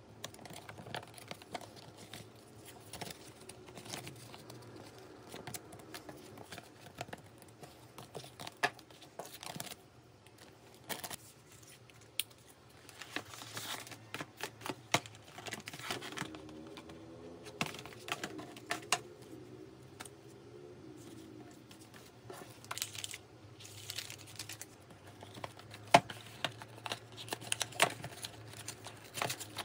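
Paper packaging handled on a tabletop: gold foil and paper envelopes and paper bags rustling and crinkling, with scattered sharp clicks and taps as items are picked up and set down. Near the end a small cardboard carton is pulled open.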